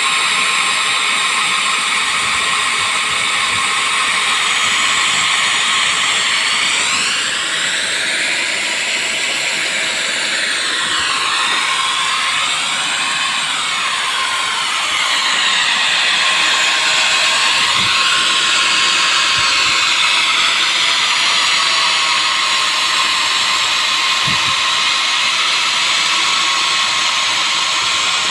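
A power tool running without a break: a loud, steady high-pitched whine over hiss. Its tone sweeps slowly up and down as the tool moves.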